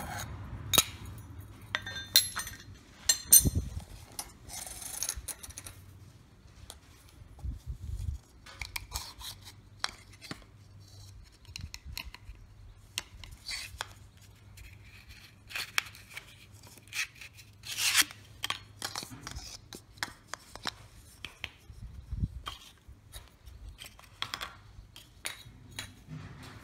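Metal clinks, clicks and scrapes of Honda C100 rear shock parts (steel coil spring, sheathing tubes, damper rod and mount) being pulled apart, handled and set down on paper towel over concrete. Irregular, with the loudest clatter a few seconds in and again about two-thirds of the way through.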